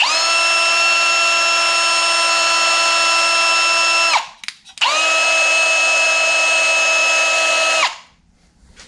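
Power tool running at a steady high-pitched whine in two runs of about four and three seconds, each winding down in pitch as the trigger is released, with a short break between them.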